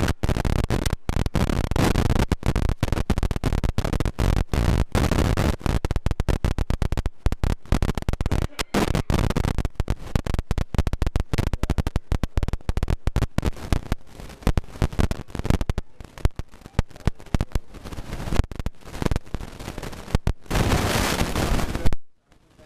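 Dense, harsh crackling noise, like a badly distorted or faulty audio track, with a brief dropout near the end.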